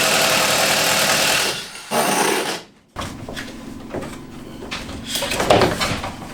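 A power tool running loudly and steadily, then stopping. After a break it gives way to quieter scattered knocks and handling noises over a low hum.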